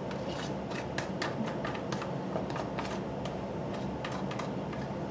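Small plastic measuring spoon tapping and scraping against a plastic food container while scooping grated lemon zest: a run of irregular light clicks that thin out after about three seconds, over a steady low hum.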